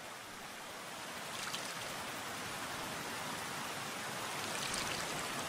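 Steady rush of running water, slowly growing a little louder, with a few faint light ticks over it.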